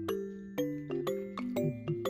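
Light background music: a melody of short, clearly separated notes, a few per second, over a bass line.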